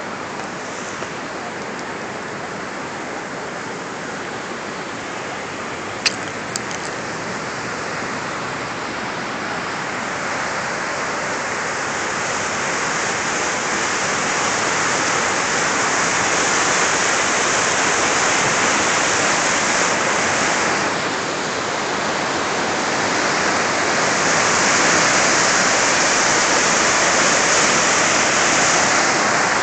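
Muddy floodwater rushing and churning in rapids, a steady rush that grows louder about halfway through. There is a single sharp click about six seconds in.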